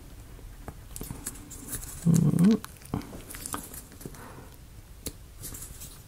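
Small plywood model pieces being handled and pressed together, giving scattered light clicks and taps. About two seconds in, a short vocal sound rising in pitch stands out as the loudest thing.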